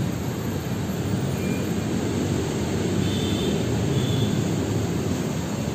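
Steady low rumbling noise with no clear pitch, with a few brief faint high chirps about three and four seconds in.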